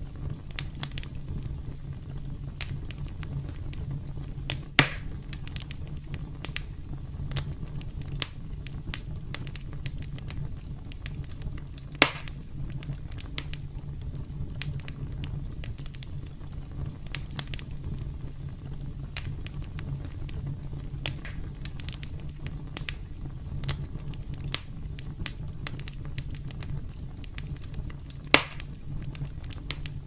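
Wood campfire crackling, with a low steady rumble under a constant scatter of small snaps. Three louder pops stand out: about five seconds in, about twelve seconds in, and near the end.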